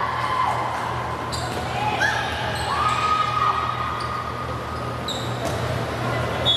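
Gym during a volleyball rally: sneakers squeak on the hardwood court in several high-pitched squeals, with a few sharp knocks over a hum and the murmur of the hall.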